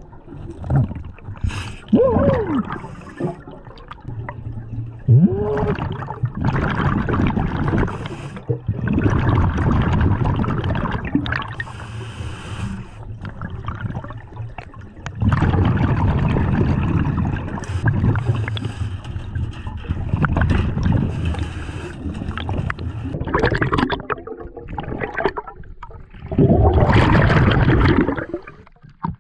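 Scuba diver breathing underwater: loud gurgling rushes of exhaled bubbles from the regulator come again and again every few seconds, with quieter water noise between them.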